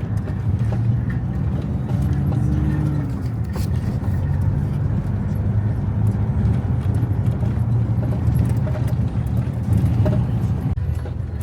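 Motor vehicle on the move, with a steady low engine and road rumble heard from inside.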